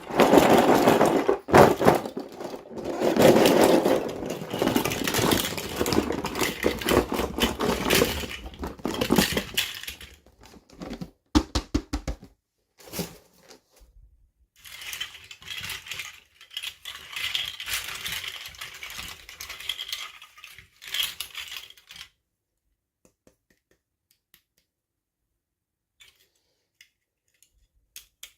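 Toy packaging being handled and torn open: loud rustling and crinkling with sharp clicks, stopping about three-quarters of the way through.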